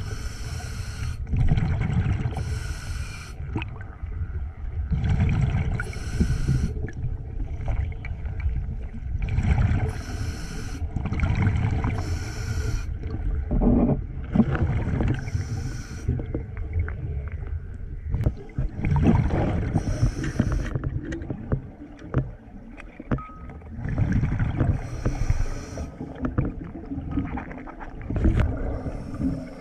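Underwater sound of a scuba diver breathing through a regulator: bubbling gushes of exhaled air every few seconds over a steady low rumble of moving water.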